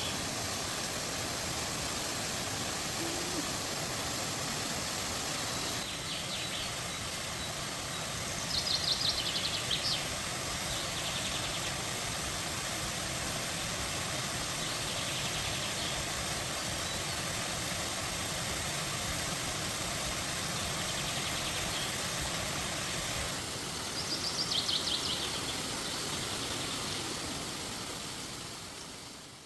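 Waterfall and stream rushing steadily, with a bird calling in short rapid high trills, loudest twice, about a third of the way in and near the end, and fainter calls in between. The sound fades out at the very end.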